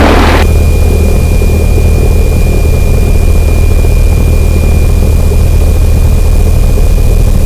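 Cessna 172N's four-cylinder Lycoming engine and propeller running steadily at low power on the ground, heard loud inside the cabin. A thin, steady high-pitched whine joins about half a second in.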